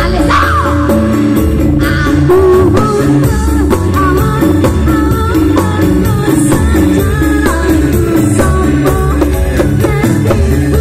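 Live dangdut koplo song played loud through a PA: a woman singing over electronic keyboard accompaniment with a steady beat.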